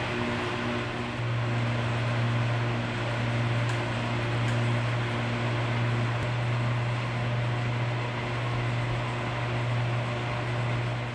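Electric fans and an air cooler running: a steady whir of moving air over a low, constant motor hum.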